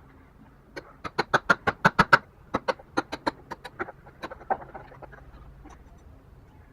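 Hand tool striking wood: a rapid run of about twenty sharp knocks, about six a second, with a brief pause partway, loudest in the middle and tapering off, as in chopping out a wooden joint.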